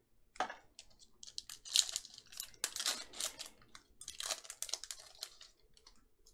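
Foil wrapper of a Panini Mosaic football trading-card pack being torn open by hand: quick irregular bursts of crinkling and ripping for about five seconds, dying away near the end.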